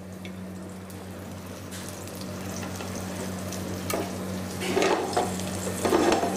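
Flour-dusted mahi-mahi fillets sizzling and crackling as they sauté in a little olive oil in a frying pan. The sizzle swells louder twice near the end.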